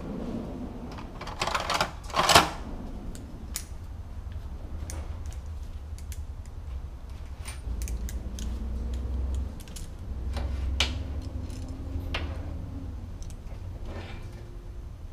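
Irregular metallic clicks and taps of steel chain links and hand tools being handled, with one louder clack about two seconds in.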